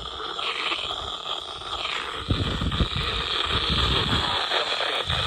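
Steady hiss from a radio receiver between broadcast messages, with irregular low rumbling through the second half.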